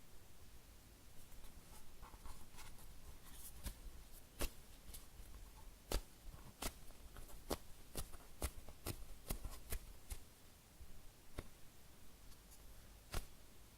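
Fingers squeezing and handling a soft cheesecake-shaped squishy toy. There is faint rustling at first, then a run of sharp little clicks, about two a second from about four to ten seconds in, and a couple more near the end.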